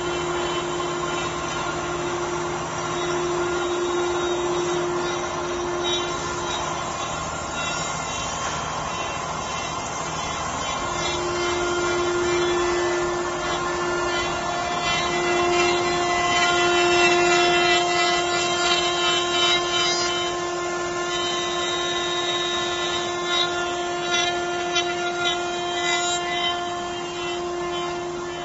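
CNC router running: the spindle gives a steady high whine over a rushing machining noise. The whine fades out for a few seconds about a fifth of the way in, then returns, and a second, higher tone joins about halfway through.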